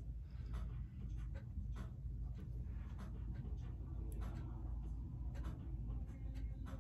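Soft rubbing and scattered small clicks of fingers handling a small plastic disposable ear-piercing unit as it is lined up on the earlobe, over a steady low hum.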